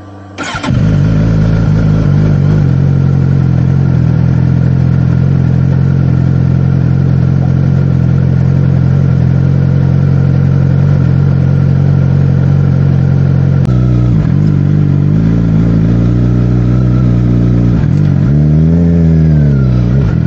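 Suzuki GSX-R sport bike's inline-four engine being started: a brief crank, catching within a second, then idling steadily. In the last few seconds the idle wavers, and the revs rise and fall once.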